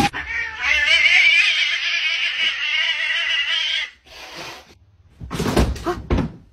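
A cat yowling: one long, wavering, drawn-out cry lasting about three and a half seconds, then a few short harsh bursts near the end.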